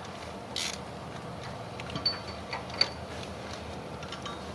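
A few light, irregular metallic clicks and ticks from a ratchet and socket as the new oxygen sensor is tightened into the exhaust. The sharpest ticks come together a little past the middle.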